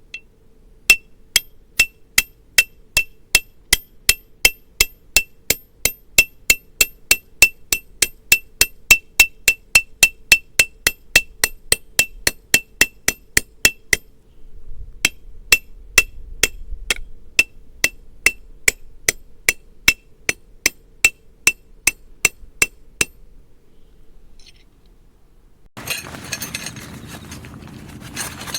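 Camping peg hammer driving a forged steel tent peg with quick, even blows, about three a second, each strike ringing with a metallic clink. The blows come in two long runs with a short pause between them, and a rough scraping noise starts near the end.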